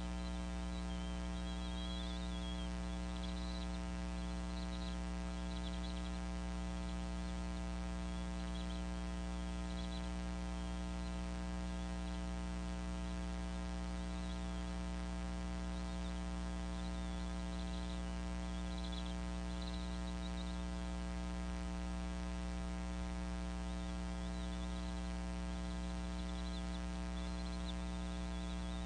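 Steady electrical mains hum with a stack of buzzing overtones, carried on the nest camera's audio feed, unchanging throughout.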